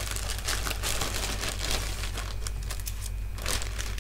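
Thin clear plastic bags crinkling and rustling as they are handled, in many quick irregular crackles, over a steady low electrical hum.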